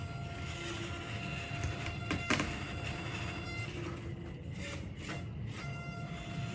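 Small electric RC crawler truck driving at a steady crawl, its motor and gears giving an even whine that stops and starts, with two sharp knocks a little over two seconds in.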